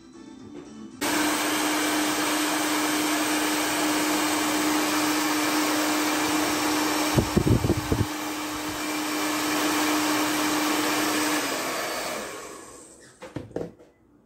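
Hair dryer switched on about a second in and running steadily with a constant hum, its nozzle aimed at the corked neck of a glass bottle. About halfway there is a brief low rumble. Near the end it is switched off and winds down, followed by a few clicks.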